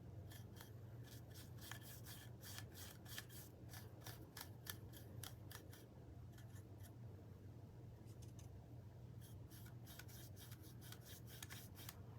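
Paintbrush bristles stroking over a small wooden piece: faint, quick scratchy strokes, several a second, with a sparser stretch in the middle. A steady low hum runs underneath.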